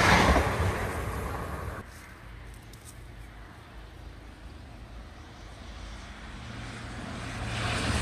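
A CrossCountry Class 170 Turbostar diesel multiple unit passing close by, its noise fading away over the first two seconds. After a quiet spell, a First Hull Trains Class 180 diesel unit approaches from about six seconds in, its steady low engine hum and running noise growing louder.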